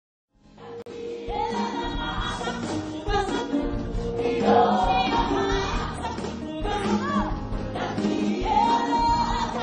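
Background music with a choir singing, fading in over the first second.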